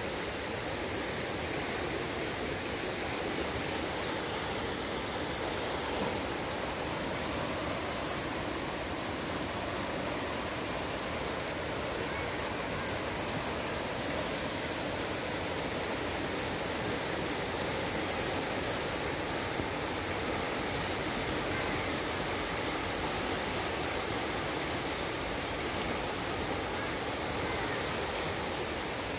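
Fast-flowing muddy floodwater rushing steadily, a constant even hiss of moving water.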